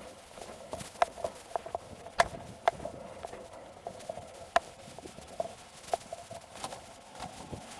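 Footsteps on pavement with irregular sharp clicks and knocks of gear, heard close up through a body-worn camera.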